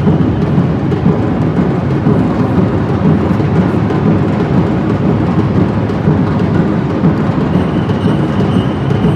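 A percussion band of drums playing a steady, loud rhythm in a large sports gymnasium.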